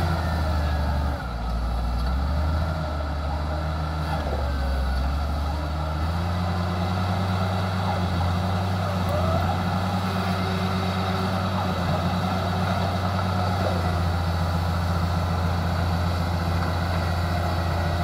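Diesel engine of a small crawler bulldozer running steadily while its raised blade pushes against a tree trunk. The engine note changes briefly about a second in and again around six seconds in.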